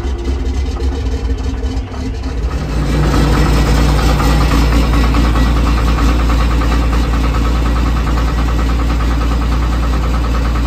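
Excavator's diesel engine running steadily just after start-up, warming up. About two and a half seconds in it gets louder and settles into a fuller, steady run.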